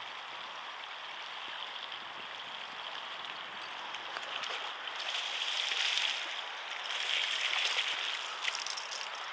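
Lake water sloshing and splashing at the bank as a caught bass is let go into the shallows: a steady rushing noise that swells twice past the middle, with scattered small clicks.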